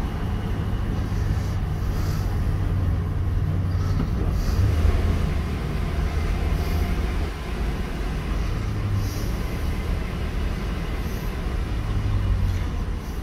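Pickup truck driving at low speed, heard from inside the cab: a steady low engine drone over road noise, swelling a few times as the throttle changes.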